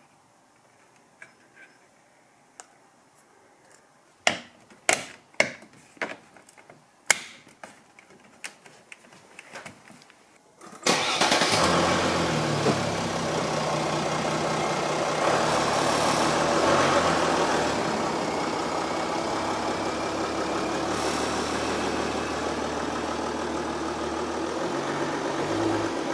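A run of sharp clicks as the grille star's clips are snapped into the grille. Then, about eleven seconds in, the Mercedes-Benz E-Class W212's engine starts suddenly and runs steadily.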